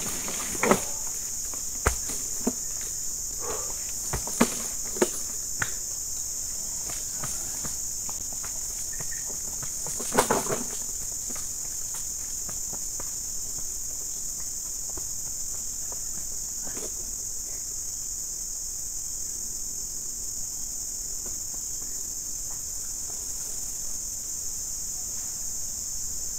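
Steady high-pitched chorus of insects. Scattered knocks and footsteps in the first few seconds as a loaded wheelbarrow is pushed away over rough ground, and a louder rustle about ten seconds in.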